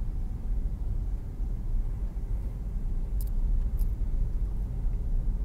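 Steady low rumble of a car driving slowly, heard from inside the cabin: road and engine noise. Two faint high ticks come a little over three seconds in.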